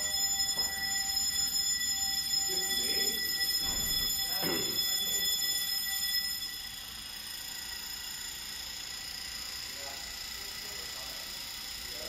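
Building fire alarm sounding a steady high-pitched tone, which drops in level about six and a half seconds in; the resident takes it for a faulty alarm that has gone off for the second time.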